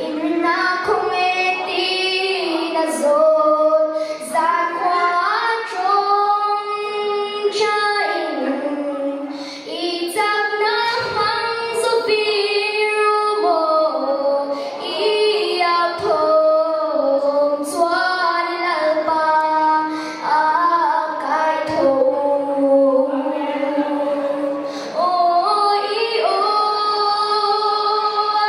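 A young girl singing a song into a microphone, phrase after phrase of held notes moving up and down in pitch, with brief breaths between phrases.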